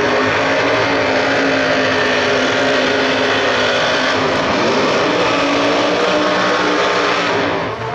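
Pro Mod drag car doing a burnout: the engine is held at high revs with the rear tyres spinning, loud and steady, then cut off sharply near the end.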